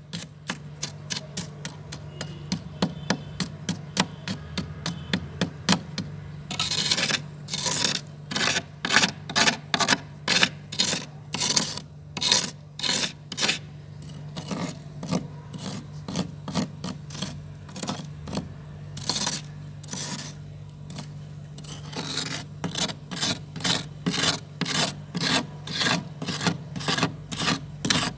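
Metal spoon scraping thick freezer frost in quick repeated strokes, about two a second, a few of them longer and drawn out. A steady low hum runs underneath.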